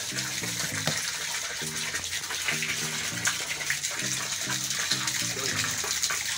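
Water splashing and gushing in a tarpaulin fish nursery tank as a hand works in the water.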